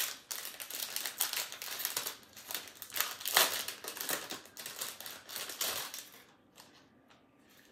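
Clear plastic packaging crinkling and rustling as a packet of beaded bracelets is unwrapped by hand, with small clicks mixed in; it dies down about six seconds in.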